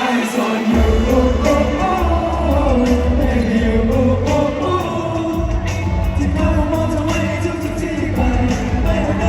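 Live pop band music with a sung melody; the bass and drums come in under a second in and keep a steady beat.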